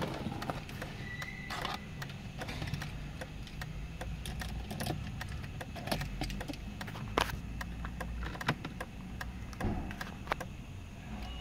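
Keys jangling and scattered irregular clicks and taps inside the car's cabin, with the ignition switched on and the engine not yet running. A brief faint high tone sounds about a second in.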